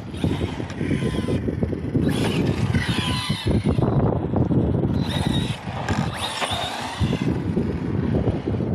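The brushless electric motor of a Team Corally Sketer 4S RC monster truck whining up and down in pitch as it speeds up and slows, twice over, with tyre noise on asphalt under a heavy rumble.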